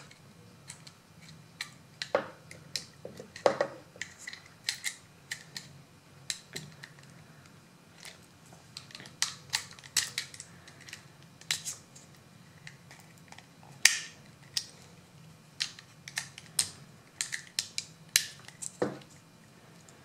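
Hand work on an Abus C83 euro lock cylinder with a clip remover: irregular small metal clicks and ticks, with a sharper click a little past the middle and a few duller handling knocks in between.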